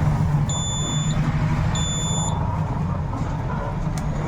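Buzzer of a homemade fire-alarm circuit, set off by a flame, sounding a high-pitched beep twice, each about half a second long, then stopping. A steady low hum runs underneath throughout.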